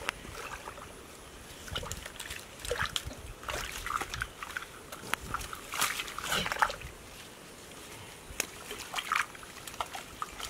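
Hands groping through shallow muddy water and mud, making irregular squelches, sloshes and small splashes, busiest in the middle.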